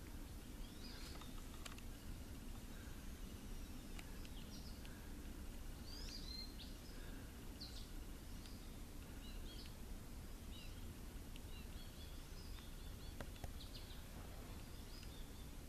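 Small birds chirping and calling on and off over a steady low rumble, with a few faint sharp ticks.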